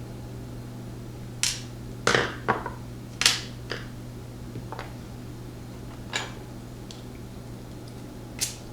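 Scattered sharp clicks and taps, about eight, clustered in the first half, as a padlock and small tools are handled while the lock is being taken apart. A steady low hum runs underneath.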